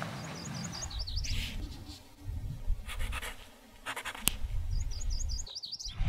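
Pencil scratching on paper on a clipboard, in short strokes. A small bird twitters a quick run of high chirps near the start and again about five seconds in, over a low rumble.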